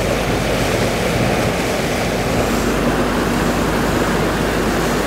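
Steady rush of wind and sea water heard from aboard a boat running offshore, with a low engine drone underneath.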